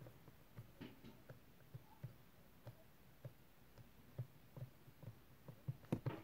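Faint, irregular soft taps and presses of fingertips working sticky slime into a small plastic palette container on a table, one or two a second, with a brief cluster of louder taps near the end.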